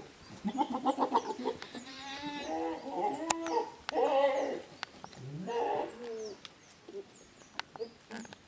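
Goats bleating, about four wavering calls one after another, with small birds chirping faintly behind.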